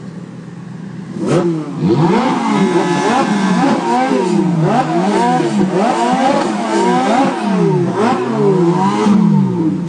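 Stationary Ferrari V8 engines idling, then from about a second in revved repeatedly: the rising and falling pitches of at least two engines cross each other, about one rev a second.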